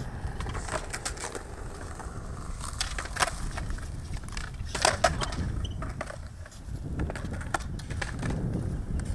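Kick scooter rolling on a concrete skatepark surface: a low rumble from its small wheels with scattered clicks and clatters. The sharpest clacks come about three seconds and five seconds in.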